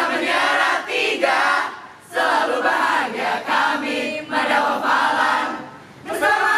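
A mixed group of men's and women's voices sings an Indonesian yel-yel group cheer in unison, in short chanted phrases with brief breaks about two seconds in and near the end.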